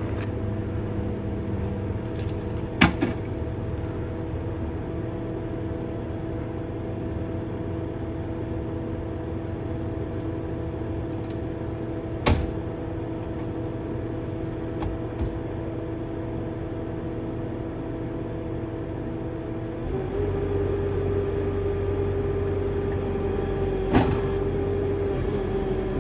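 Forestry mulcher running steadily as it shreds an air conditioner unit, with sharp cracks three times: about three seconds in, about twelve seconds in, and near the end. About twenty seconds in, its note shifts and its low rumble grows stronger.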